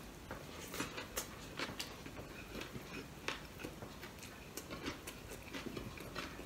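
Close-miked chewing and mouth smacks from eating a mouthful of rice by hand, heard as a scatter of soft clicks, with fingers pressing and gathering rice on a plate.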